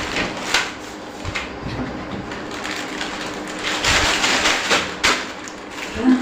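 Plastic potato-chip packets crinkling and rustling as they are bitten and pulled at to tear them open, with irregular sharp crackles and a longer burst of crinkling near the middle.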